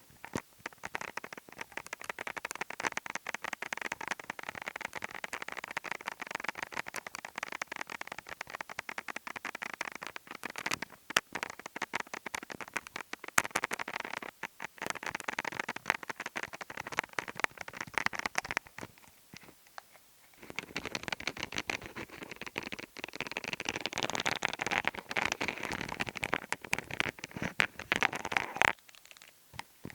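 ASMR tapping around the ears: fast, close-up taps and light scratches in a dense, continuous patter. It pauses briefly about two-thirds of the way through, then resumes before stopping just before the end.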